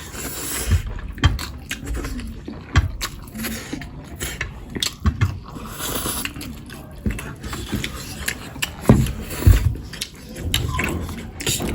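Close-miked eating: wet chewing and lip smacks in an irregular patter, with two longer airy slurps, one near the start and one about six seconds in.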